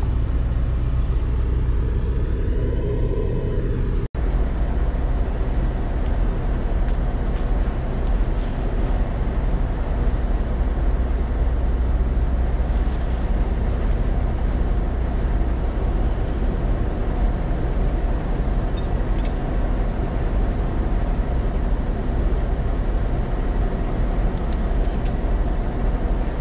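Steady low rumble of a parked semi-truck's idling engine heard inside the sleeper cab, cut off briefly about four seconds in.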